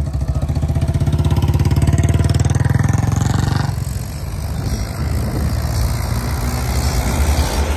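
Royal Enfield Bullet motorcycle's single-cylinder engine running close by with an even, pulsing exhaust thump that swells and fades. After about four seconds it gives way abruptly to a rougher mix of car and tractor engine and road noise.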